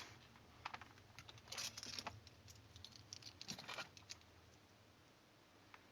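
Faint handling noise of a power cable and plug: light clicks and two short rustling scrapes, about one and a half and three and a half seconds in.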